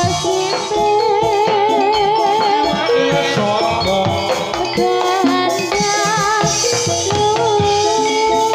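Live Javanese jathilan music: drums keeping a steady beat under rattling percussion, with a wavering melody line that holds a long note near the end.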